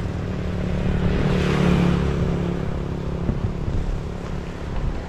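A motor vehicle's engine running close by. It swells to its loudest about one and a half to two seconds in as it passes, with a rising hiss, then fades away.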